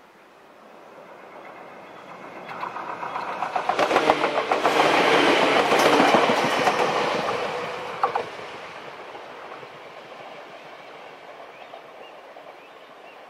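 Electric commuter train passing close by, its wheels clicking rhythmically over the rail joints. It swells over the first few seconds, is loudest as the cars go past, gives a single sharp knock about eight seconds in, then fades as it runs away.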